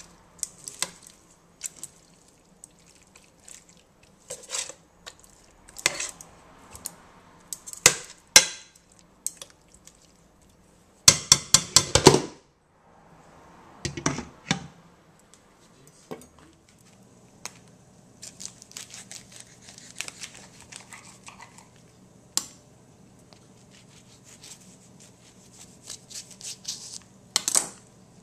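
A metal slotted spoon scraping and clinking in a stainless steel pan as raw stew meat is stirred, with a quick run of rapid clinks about halfway through and then a knock as the lid goes on. In the later part, plastic packaging crinkles as it is handled over a low steady hum.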